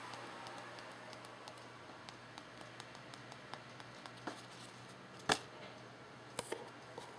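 Quiet room noise with a low steady hum, broken by scattered faint ticks and taps. A sharper click about five seconds in is the loudest, and two more follow about a second later.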